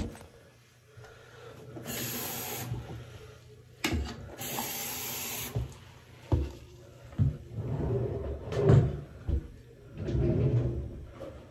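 Household handling noises: knocks, bumps and rustling as things are moved about on a counter, with two short rushing, hissing sounds in the first half and a run of thuds in the second.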